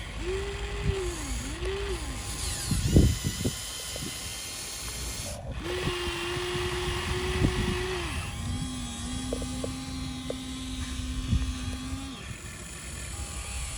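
Electric motor of a radio-controlled model excavator whining, its pitch rising and falling and then holding steady in stretches as the machine works. A short clatter of knocks about three seconds in and a few light clicks later.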